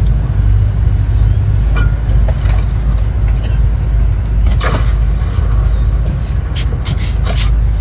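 Steady low drone of engine and road noise heard inside the cabin of a moving bus, with scattered sharp clicks and rattles, most of them in the second half.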